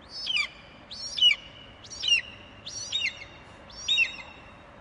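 Eagle calling: five high, whistled notes about a second apart, each sliding down in pitch, over a faint steady hiss.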